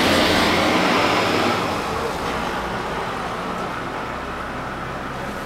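A road vehicle's engine and tyres, loudest at first and fading steadily after about a second and a half as it moves away.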